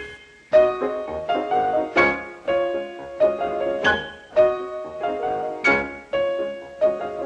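Piano music cue from a cartoon sound library: struck chords and single notes that ring and decay, with a strong accented chord about every two seconds.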